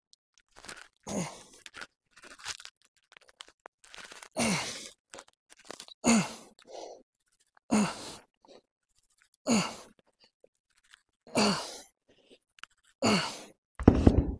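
A man's effortful voiced exhales, about one every two seconds, each falling in pitch, as he rows a 45 kg dumbbell one arm at a time. A heavy low thump comes near the end.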